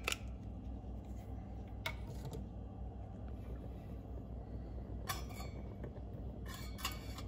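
Stainless steel cup knocking and clinking against the metal pot stand of an alcohol stove as it is set on top: a few light knocks, with a cluster of clinks near the end. A steady low hum lies under them.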